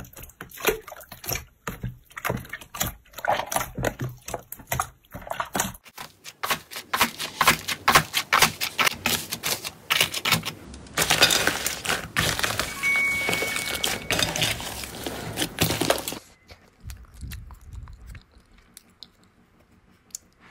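Hands pressing and kneading glossy slime in a tub, with quick wet pops and squelches. After a cut about six seconds in, fingers push into the dried, cracked top of an iceberg slime, which crackles and crunches densely for several seconds. It turns much quieter near the end.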